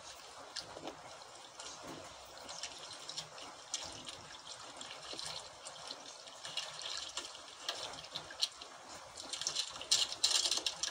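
Sea water lapping and splashing against the hull of an outrigger boat, with many small splashy clicks, getting louder near the end.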